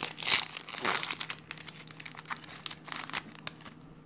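Plastic-foil wrapper of a Yu-Gi-Oh booster pack being torn open and crinkled by hand, loudest in the first second or so, then quieter scattered crackles near the end.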